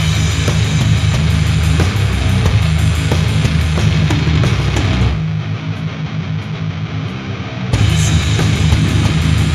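Old-school death metal played by a band, with heavily distorted guitars and driving drums. About five seconds in, the drums and low end drop out for roughly two and a half seconds, leaving a thinner part, then the full band crashes back in.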